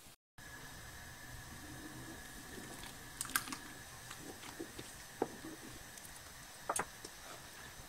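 Wooden spoon stirring a barley malt mash in a large aluminium pot, the grain and water swishing quietly, with three sharp knocks of the spoon against the pot, a couple of seconds apart, over a steady faint hiss.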